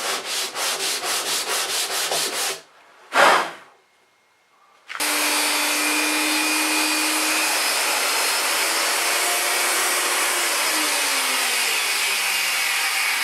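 Hand sanding on wood: quick back-and-forth strokes, about five a second, for a couple of seconds, then one louder stroke. From about five seconds in, a steady loud hiss takes over, with a faint low tone that falls away near the end.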